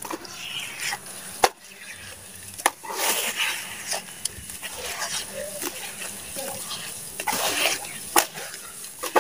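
Wet mud squelching and squishing as hands knead and squeeze it in a plastic tub, in irregular handfuls, with a few sharp clicks.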